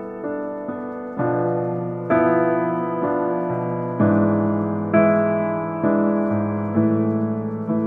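Background piano music: slow chords struck about once a second, each ringing out and fading before the next.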